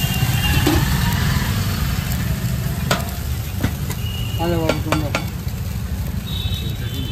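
Dosa batter sizzling on a hot tawa, with a few sharp clicks in the middle, over a steady low rumble.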